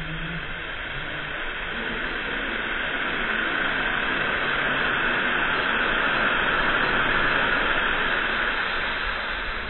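Rushing hiss of water spray thrown up by the Krake dive coaster's splashdown. It swells to its loudest about six or seven seconds in and eases off near the end.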